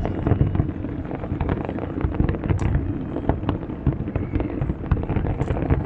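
Fireworks display: a dense, continuous run of bangs and booms from aerial shells, with sharper cracks standing out about two and a half seconds in and again near the end.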